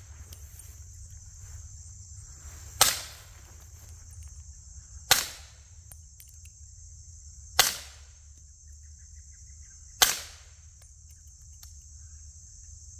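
Four suppressed rifle shots through a .30 caliber suppressor, evenly spaced about two and a half seconds apart, each a sharp crack with a short tail. Under them runs a steady high insect buzz.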